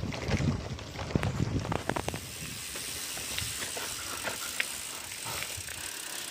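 Mountain bike rolling over a dirt and gravel trail: tyres crunching and the bike rattling over bumps. About two seconds in this eases to a quieter, steady hiss with scattered ticks.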